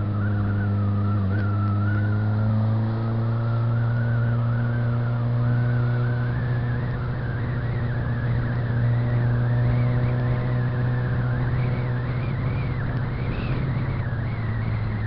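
Suzuki GSX-R 600's inline-four engine running at steady, moderate revs as the motorcycle cruises, with a wavering higher whine above the engine note.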